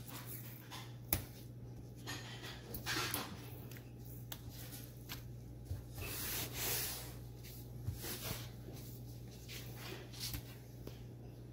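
Knife and hand-handling sounds on a wooden cutting board while sockeye salmon fillets are trimmed: a few light taps and ticks of the blade and soft rubbing and wiping strokes, the longest about six seconds in, over a steady low hum.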